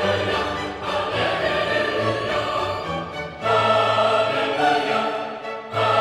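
Background music: orchestral-style royalty-free music with sustained choir-like or string voices, with a new phrase entering about three and a half seconds in.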